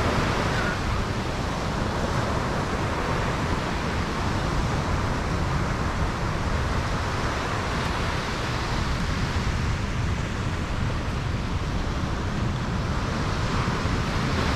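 Steady wind noise buffeting the microphone, with ocean surf behind it.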